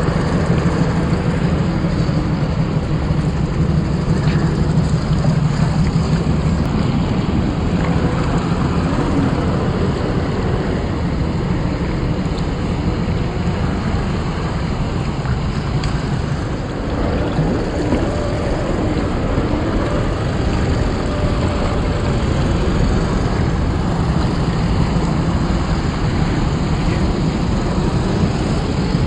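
A low engine-like drone from an RC crawler's electronic engine-sound unit, its pitch wavering a little, over a steady rush of water.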